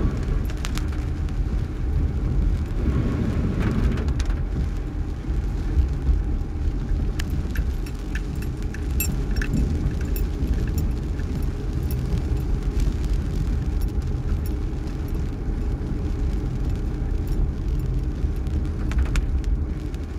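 Car cabin noise while driving in heavy rain: a steady low rumble of the car and its tyres on the wet road, with scattered light ticks of rain striking the windshield and roof.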